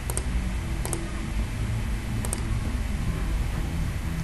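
Computer mouse clicking a few times, each click a short sharp press-and-release tick, over a steady low background hum.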